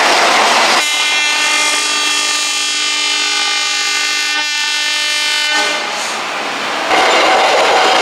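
Diesel locomotive sounding one long horn blast of about four to five seconds over the rumble of the approaching train, after which the train runs past close by.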